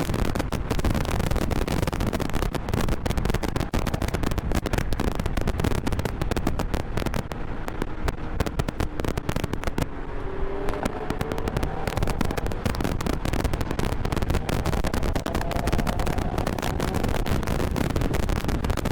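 Onboard sound of a Mazda MX-5 (ND) roadster at speed on a track: wind buffeting on the camera microphone makes a dense, loud crackle, with the engine note rising under acceleration from about ten seconds in and again near the end. The crackle eases for a couple of seconds just before the first rise.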